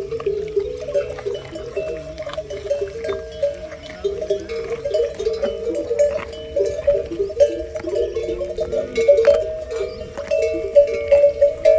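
Several bells hung on grazing camels, clanking irregularly as the animals move, with several ringing tones overlapping.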